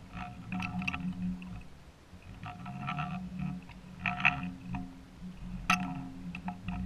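Underwater sound picked up through an action camera's waterproof housing: a steady low hum with irregular clicking knocks, the sharpest near the middle and late on.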